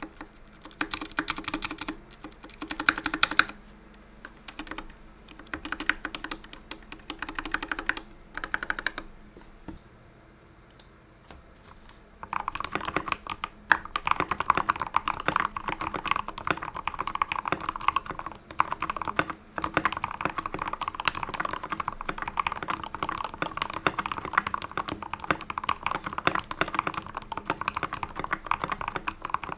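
Typing on a GK64XS mechanical keyboard with Tealios V2 linear switches and XDA-profile PBT keycaps. For the first several seconds the switches are unlubed and the typing comes in short bursts. After a pause of a few seconds, steady continuous typing follows on the same switches, now lubed with GPL 205G.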